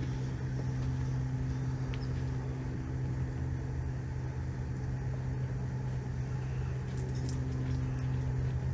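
Steady, unchanging low hum of an idling engine, with a few faint clicks near the end.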